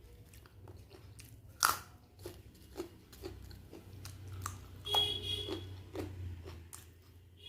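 Close-up eating sounds: chewing and biting with crisp crunches, the sharpest about a second and a half in and another loud spell near five seconds.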